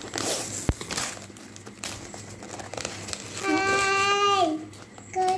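Gift wrapping crinkling and tearing as a box is unwrapped by hand, with one sharp click about a second in. Past the middle, a young girl lets out one long delighted cry that falls in pitch at the end.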